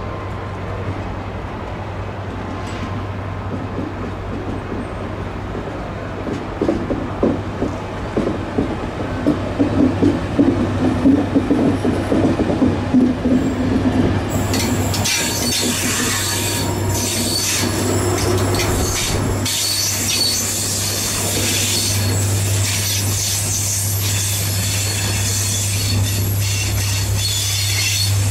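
Loco-hauled passenger train, a Mk3 driving van trailer with a Class 67 diesel, running slowly past at a platform under a steady low hum. A run of clacking wheels over rail joints comes first; from about halfway the clacking gives way to high-pitched squealing from the wheels and brakes as the coaches pass.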